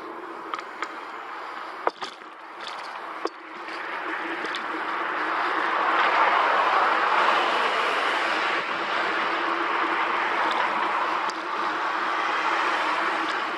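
Wind rushing over the microphone and tyre noise from a bicycle ride on a tarmac road, swelling about four seconds in and staying strong. A few sharp clicks and rattles from the bike come in the first few seconds.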